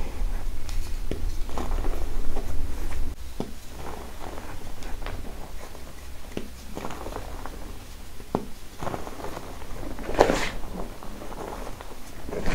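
Hands squeezing and crumbling clumps of fine grey powder: a string of soft, irregular crunches and crackles, with one louder crunch about ten seconds in.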